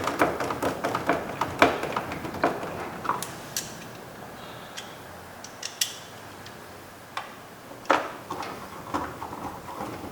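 Clicks and knocks of a driver tightening the T27 Torx screws that hold the interior door trim panel: a quick run of clicks over the first few seconds, then a few scattered clicks.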